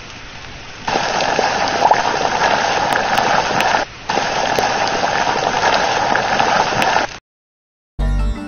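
Rushing, crackling fire sound effect from a phone face filter that shows flames and fire spewing from the mouth. It grows louder about a second in, drops out briefly near the middle, and stops near the end.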